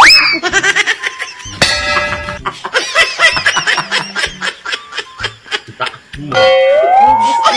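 Background music with people laughing in quick, repeated pulses.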